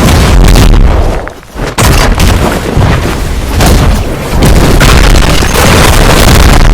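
Very loud, distorted booming noise that runs almost without a break, dropping away briefly about a second and a half in.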